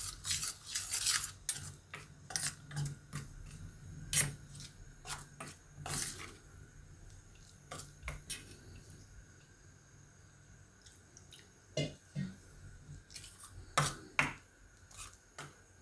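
Metal spoon scraping and clinking against a stainless steel bowl as dry spice powders and a little water are stirred into a paste: irregular clicks and scrapes, sparser for a couple of seconds in the middle.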